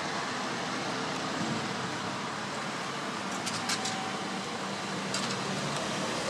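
Road traffic going by: a steady noise of engines and tyres from passing cars and vans, with a faint low hum under it. A few short high ticks come about three and a half seconds in and again near five seconds.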